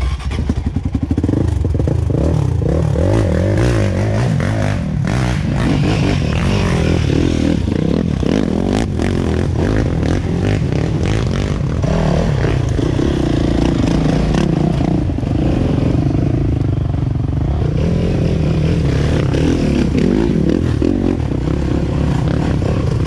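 Off-road dirt bike engines running and revving up and down in low gear over rough ground, with scattered clattering and scraping.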